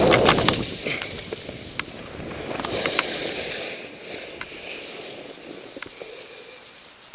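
Skis sliding through powder snow: a swishing hiss, loudest at the start and fading over the next few seconds, with scattered light clicks and taps.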